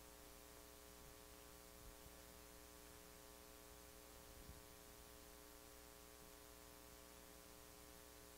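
Near silence: a steady electrical hum over faint hiss.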